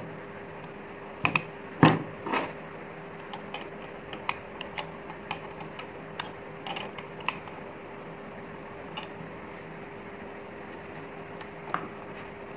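Scattered clicks and knocks of metal parts as hands handle and adjust an LPG converter (vaporiser-regulator) with its cover off, a cluster of louder knocks about two seconds in, over a steady faint hum.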